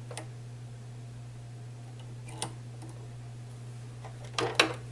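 Light plastic clicks from a Silhouette Cameo cutting machine's pinch roller being handled on its roller bar: one click near the start, another about halfway, and a quick, louder pair near the end. A steady low hum runs underneath.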